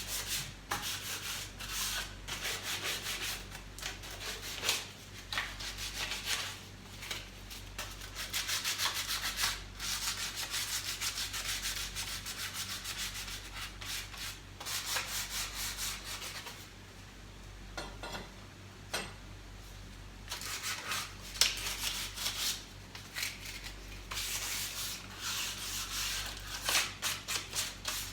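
Sandpaper rubbed by hand in quick back-and-forth strokes over a varnished surface, scraping off the old varnish so new paint will stick. The strokes pause for a few seconds a little past the middle, then resume.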